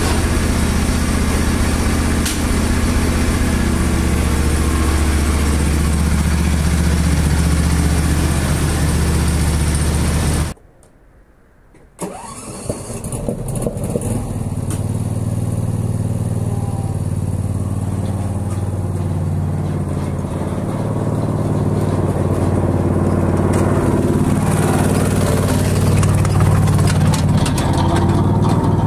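The Briggs & Stratton Intek V-twin engine of a Husqvarna rider mower running steadily. The sound breaks off for about a second and a half, some ten seconds in. Then the engine is heard again, quieter at first and growing louder toward the end.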